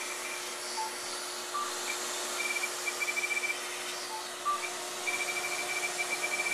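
Fraxel Dual laser running on its 1927 nm thulium handpiece: quick runs of short high electronic beeps as it fires across the skin, over a steady fan-like hiss from the machine, with a few single lower beeps in between.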